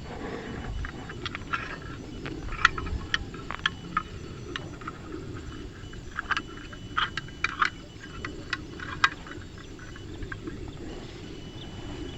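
Irregular light clicks and clinks of small hard objects being handled, some with a brief ring, bunched in two runs, over a low steady rush of wind.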